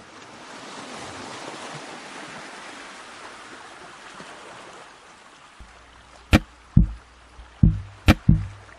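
Intro of a music backing track: a hissing swell like surf that rises and fades over about five seconds, then a low bass note with about five sharp drum hits near the end.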